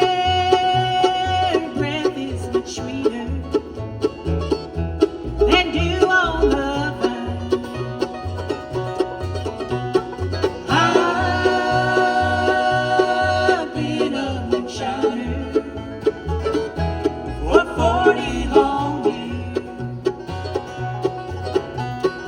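Bluegrass band playing: banjo picking over a steady two-note bass pattern, with guitar, and long held melody notes on top.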